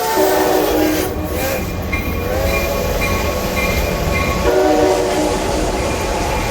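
Train horn sounding in three blasts, a chord of several tones whose first blast drops in pitch as it ends, over the steady low rumble of a running train.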